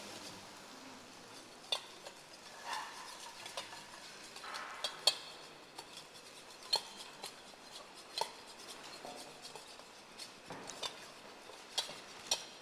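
Kitchen utensils clinking and scraping against a metal mixing bowl and a frying pan as food is stirred and served. The clinks are sharp and irregular, a second or two apart.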